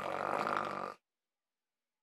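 A novelty ringtone playing through a phone speaker: a low, rough, voice-like sound lasting about a second, then cutting off.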